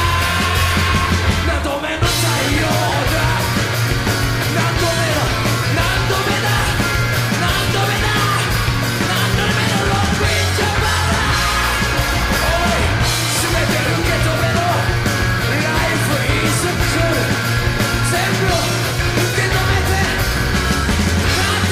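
Live rock band: a man singing hard, close to shouting, over a loud full band with a steady heavy bass line, with a brief break in the music about two seconds in.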